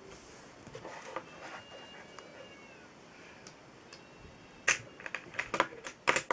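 A paper instruction leaflet being handled, giving a few short rustles and crinkles in the second half. Earlier there are faint, thin, high-pitched tones.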